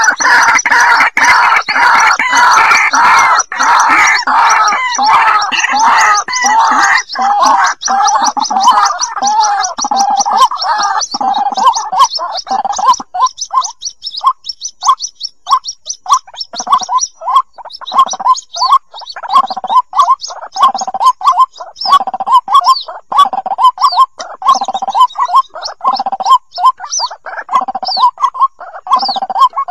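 White-breasted waterhen chicks calling for their parent: a dense chorus of overlapping calls for the first dozen seconds, then a quick run of short separate calls, about two a second.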